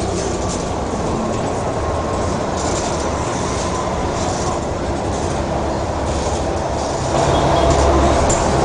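Diesel bus engine running with road and traffic noise, growing louder about seven seconds in as the bus draws close.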